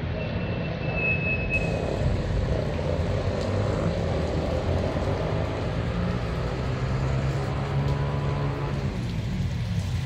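Town street traffic on a wet road: a steady hum of vehicles, with an engine passing more strongly in the second half. A short high steady tone sounds near the start.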